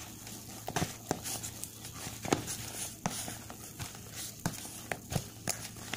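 Hand kneading soft, margarine-enriched odading dough in a plastic bowl: irregular squishing and slapping, with the bowl knocking against the table now and then, the sharpest knock about two seconds in.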